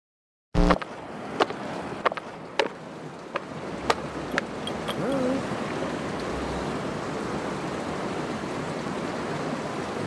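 Rushing water with wind noise, steady after a loud start. A run of sharp knocks comes during the first half, and a short wavering tone sounds about five seconds in.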